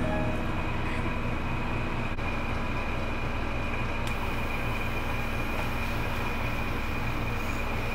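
Electric dog hair clippers running with a steady, unchanging hum.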